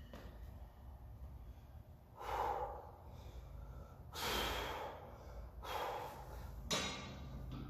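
A man breathing hard through his nose and mouth, four sharp breaths a second or two apart, the last one the shortest. He is a weightlifter psyching up and bracing before a heavy barbell deadlift.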